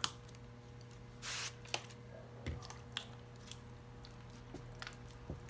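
A short hiss of a spray bottle spritzing slime activator about a second in, with scattered small sticky clicks and pops as a hand presses and kneads sticky, under-activated slime on a counter.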